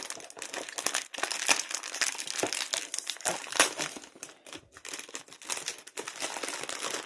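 Crinkly plastic snack wrapper being handled and pulled open by hand: a continuous irregular crackling and rustling, with a sharper crackle about halfway through.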